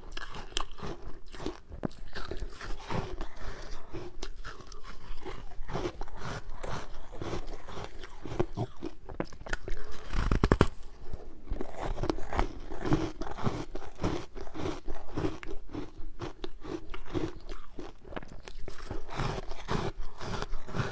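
Ice being bitten and chewed close to the microphone: a steady stream of irregular crunches, with a quick run of sharp crackles about halfway through.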